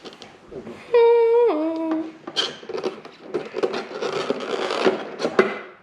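A person hums two held notes about a second in, the second lower than the first. Then comes a few seconds of rustling and clicking handling noise.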